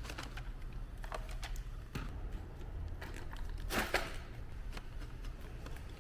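Handling noise from plastic Dyson vacuum parts being moved and fitted together: scattered light clicks and knocks, the loudest about four seconds in, over a low steady hum.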